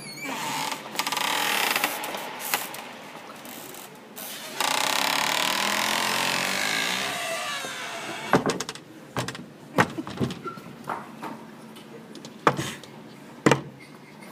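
Rushing, rubbing noise of a phone being handled and swung about, then a string of irregular knocks and thumps as hands and the phone bump against the floor.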